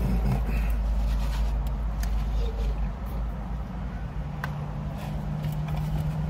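Low steady rumble inside a car's cabin, with a few faint clicks and rustles; a steady low hum joins about four seconds in.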